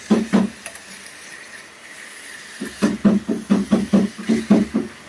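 Pork pieces sizzling in a hot kadai as a metal spatula stirs them, scraping against the pan twice near the start, then in a quick run of about ten strokes in the second half.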